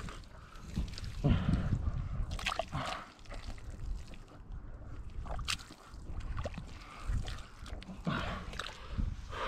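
Thick wet mud squelching and sloshing in irregular bursts as a person crawls and digs through it with their hands and body.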